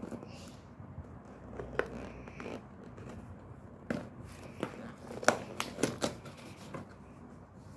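Perforated tear-open flap of a cardboard coffee-capsule box being pushed through with a pen tip and then pulled open by hand: a string of sharp cardboard snaps and tearing, the loudest about five seconds in.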